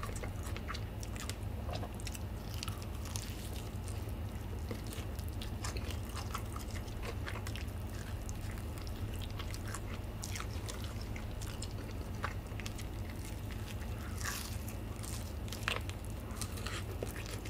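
Close-miked eating of a Puringkle fried chicken drumstick: biting into the seasoned coating and chewing, with many small crunches and wet mouth clicks, a little busier near the end. A steady low hum runs underneath.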